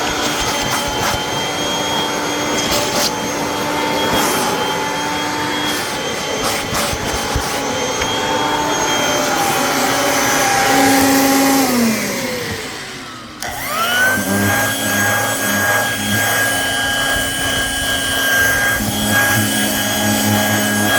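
Vacuum cleaner motor running steadily while vacuuming upholstery. About twelve seconds in it winds down with a falling pitch, then is switched back on and quickly spins up to a steady run.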